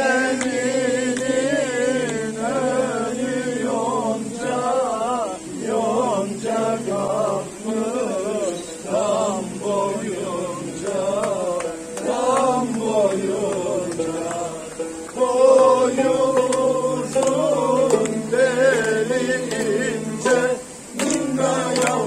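Music: a man singing a slow, ornamented melody with wavering pitch over a low, sustained instrumental accompaniment.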